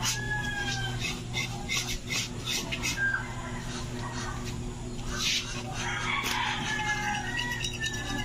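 A knife blade scraping the hair off a scalded pig's hide in short, repeated strokes, with chickens and small birds calling in the background and a steady low hum underneath.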